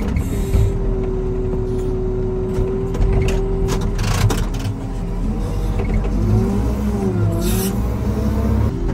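Snow-removal motor grader's diesel engine and hydraulics running steadily, heard inside the cab while the blade control levers are worked. The engine note sags briefly and recovers a little before the end, and there are a few short clicks.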